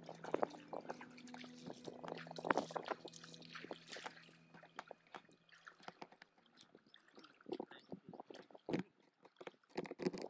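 Water sloshing and splashing in irregular small bursts as a person wades in waist-deep water and moves a pot through it.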